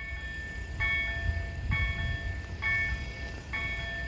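Level crossing warning signal ringing, a chiming tone about once a second, sounding while the barriers are down: the warning that a train is approaching. A low rumble runs underneath.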